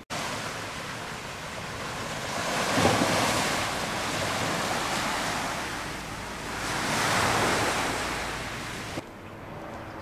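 Sea surf washing onto a shingle beach, swelling twice, with wind rumbling on the microphone; it cuts off abruptly near the end.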